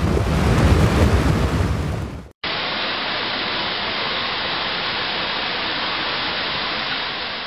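Muddy floodwater rushing and churning, loud and deep. After a sudden cut about two seconds in, it gives way to the steady, even rush of water pouring from a dam's open spillway gates.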